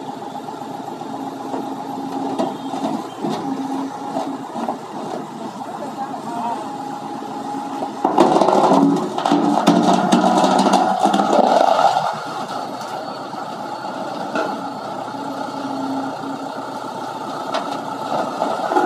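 Heavy vehicle engine running steadily, growing louder and harsher for about four seconds midway before settling back.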